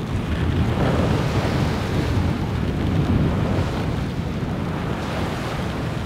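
Wind buffeting the microphone over the rush of the sea along a sailing yacht's hull as it sails through open-ocean waves.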